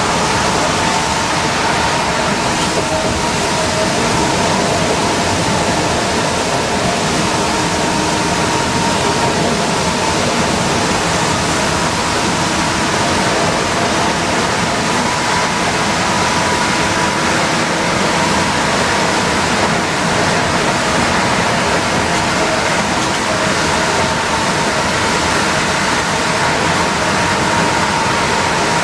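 Orion V transit bus cruising at highway speed on a rain-soaked road, heard from inside: a steady, loud rush of wet tyre and road noise over the running drivetrain, with a faint high whine coming and going.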